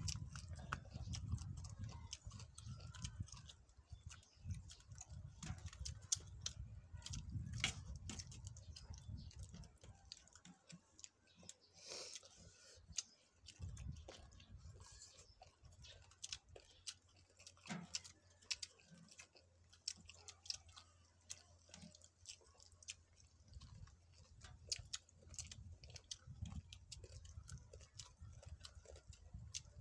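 People chewing and eating green papaya salad by hand, with many small, irregular clicks and ticks, some of them fingers picking at a metal tray. A low rumble comes and goes underneath.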